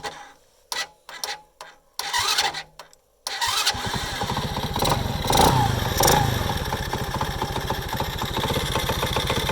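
A Delta moped's small engine being started: a few short cranking attempts, then it catches about three seconds in, revs up twice and settles into a steady run. It has an extraneous knock that the owner cannot locate.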